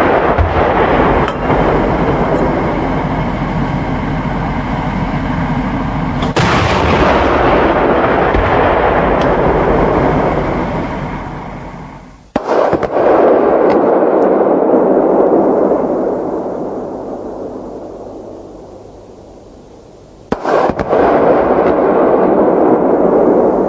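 Bofors 40 mm L70 cannon of a CV9040 firing short salvos of programmable 3P rounds, with the rounds bursting at a concrete wall target. Three sudden bursts of shots come several seconds apart, each followed by a long rumbling echo that slowly dies away. The sound cuts off abruptly once between bursts.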